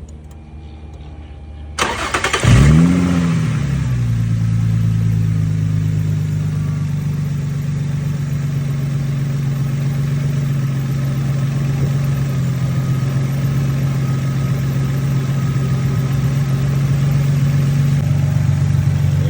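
2007 Infiniti G35 Coupe's 3.5-litre V6 started on a freshly installed battery: the starter cranks briefly about two seconds in, and the engine catches at once. Its revs flare up and drop back, then it settles into a steady idle.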